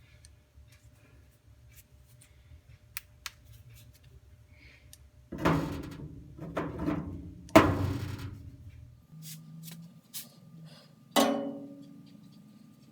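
Metal parts of a steel tool chest clanking as its hardware is handled and fitted: a few light clicks, then several sharp clanks with a short ring, the loudest a little past halfway.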